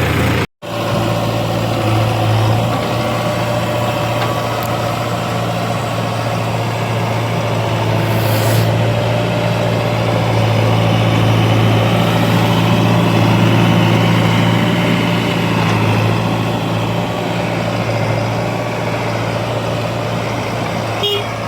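Diesel engine of heavy machinery running steadily with a low, even drone that swells a little now and then. The sound cuts out completely for a moment about half a second in.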